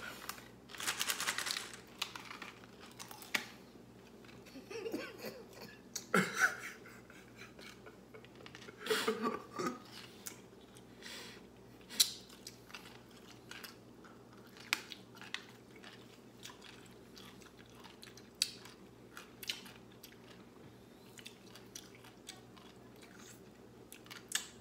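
Close-up chewing and crunching on pickles: irregular crisp crunches and wet mouth clicks.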